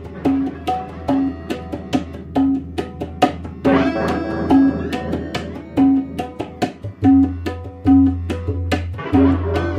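Background music: a steady hand-drum percussion beat with short repeated plucked notes over a low, sustained bass drone.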